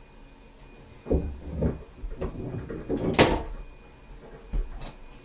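Several dull knocks and thumps, with a longer scraping rub about three seconds in.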